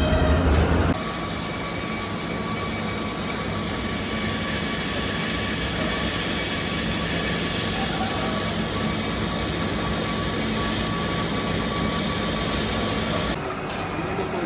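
Steady industrial machine noise, a broad hiss with a constant whine, taking over from a deeper, louder hum about a second in and dropping off shortly before the end.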